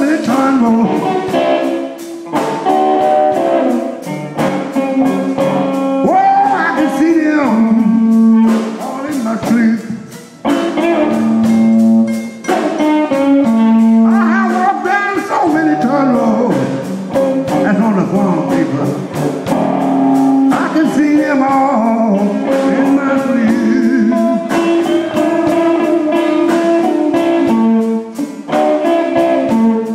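Live blues: electric guitar played over a drum kit, with singing at times.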